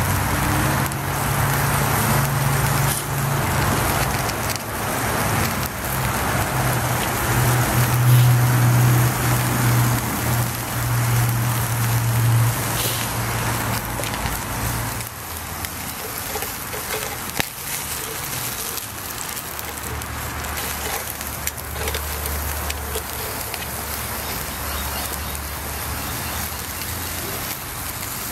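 Prosciutto-wrapped pork loin sizzling over hot charcoal on a hibachi: a steady hiss with small crackles from fat dripping onto the coals. A steady low hum runs underneath it. The sizzle gets a little quieter about halfway through.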